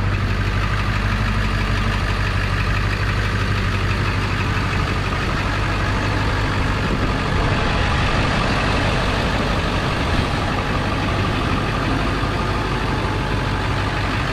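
Ford 7.3L Power Stroke turbo-diesel V8 idling steadily on its first run after a turbocharger rebuild.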